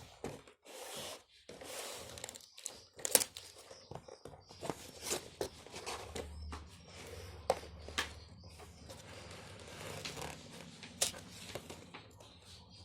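Toy packaging being handled and opened: irregular rustling, crinkling and tearing with sharp clicks of plastic and cardboard.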